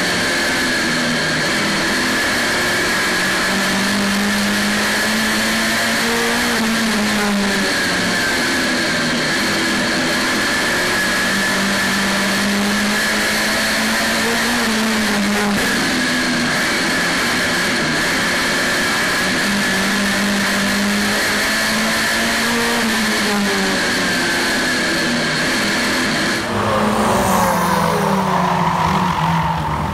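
Saloon stock car's engine heard from inside the car, revving up along the straights and easing off into the bends in a repeating cycle, with a steady high whine over it. About 26 seconds in the sound changes to trackside: several stock cars racing past.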